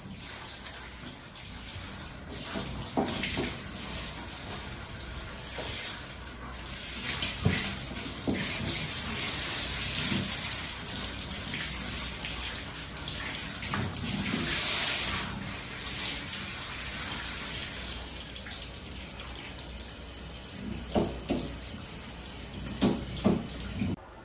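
Handheld shower head spraying water onto a dog's coat: a steady hiss of running water, louder for a moment about two thirds of the way through, with a few short knocks.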